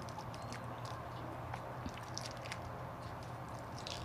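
A balut eggshell being peeled by hand: faint, scattered small crackles and clicks of the shell breaking away.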